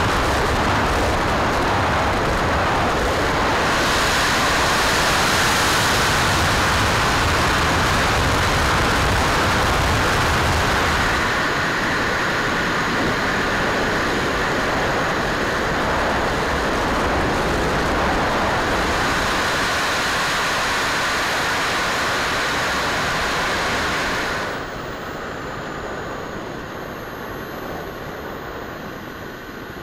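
Rushing air and motor noise from a radio-controlled model airplane in flight, heard on a camera mounted on its wing as a steady, loud hiss. A little past the twenty-four-second mark it drops sharply to a quieter running sound with faint high whines that fall in pitch.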